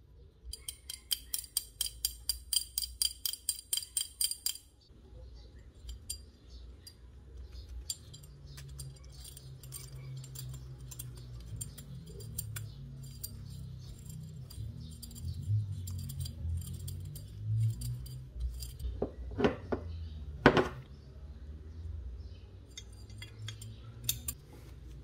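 Small metal parts of a Colt Peacemaker replica airgun clicking and clinking as they are handled and fitted together. It opens with a rapid, even run of clicks, about five a second, for some four seconds. Two sharper knocks come about three-quarters of the way through.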